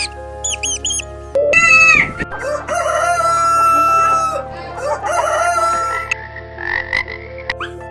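Rooster crowing: a loud opening call about a second and a half in, followed by two long crows one after the other.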